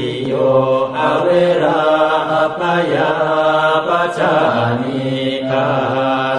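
A Buddhist monk chanting Pali verses in a steady, drawn-out monotone. The chant comes in phrases with short pauses for breath between them.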